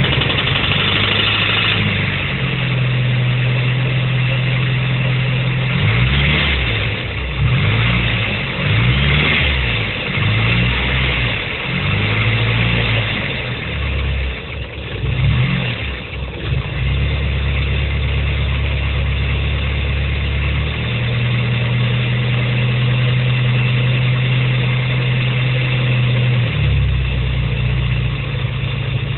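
Car engine running just after starting, revved up and down several times in the middle, then settling back to a steady idle. It has the engine knock that the video is about.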